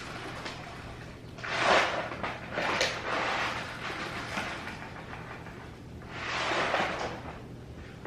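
Cats crunching dry kibble, with two louder noisy stretches of about a second each, one about a second and a half in and one about six seconds in, among fainter clicks.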